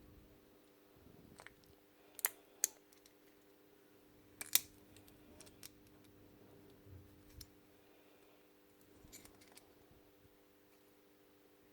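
Small metal parts clicking and ticking as the tool holder of a DeWalt DCH333 rotary hammer is taken apart by hand: spring clips worked off, the sleeve pulled back and a steel ring pried off. Scattered sharp clicks, the loudest three about two, two and a half and four and a half seconds in.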